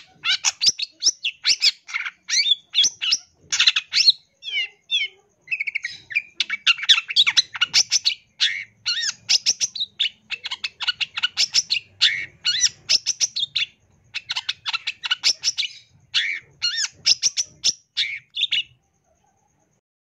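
Long-tailed shrike (cendet) singing a fast, unbroken string of sharp chirps, trills and quick up-and-down whistles, its song full of phrases copied from other birds. The singing stops abruptly near the end.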